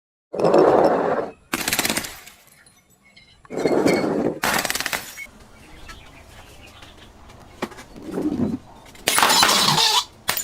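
Glass being crushed and shattering: three bursts of crackling, breaking glass, each coming shortly after a duller, lower-pitched crunch.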